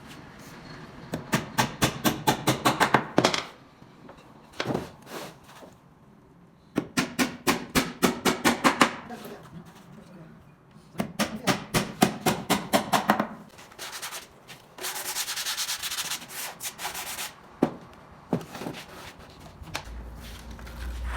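Wood being sanded by hand: quick back-and-forth scraping strokes, about five a second, in three runs, then a steadier stretch of rubbing near the end.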